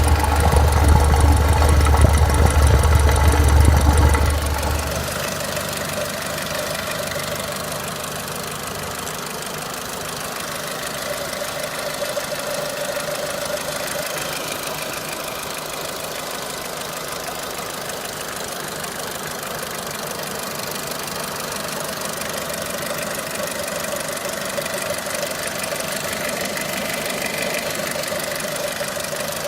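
Renault Clio III 1.4 16V petrol four-cylinder engine running, made to be heard for an unusual engine noise. A loud low rumble fills the first five seconds or so, then drops away, leaving the engine running steadily.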